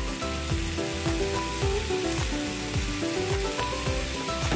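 Minced meat sizzling in a hot frying pan during a stir-fry, a steady hiss. Background music with a steady beat plays over it.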